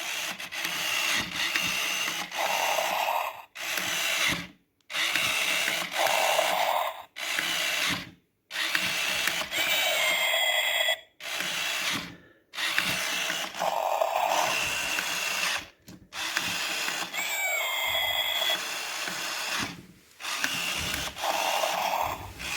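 Furby-type animatronic toy's small motor and gearbox whirring in a run of short bursts with brief pauses, as its ears, eyes and mouth move, with a couple of short electronic squeaks.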